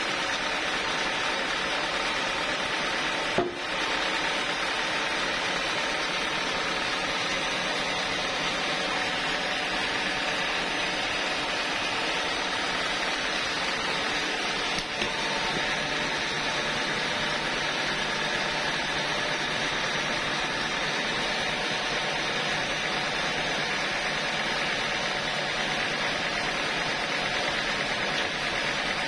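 Band sawmill's drive running steadily, with a sharp knock about three seconds in and a lighter one about halfway through.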